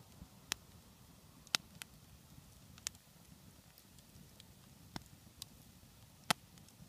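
Wood log campfire crackling: about seven irregular sharp pops and cracks over a quiet steady background, the loudest one near the end.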